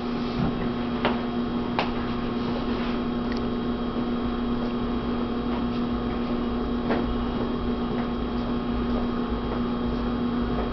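Electric potter's wheel running with a steady hum, with a few faint clicks as hands work the wet clay on the spinning wheel head.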